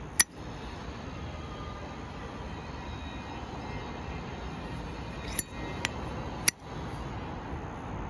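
Brass Zippo Armor lighter's lid snapping shut with one sharp metallic clack just after the start. Three more clicks follow about five and a half to six and a half seconds in.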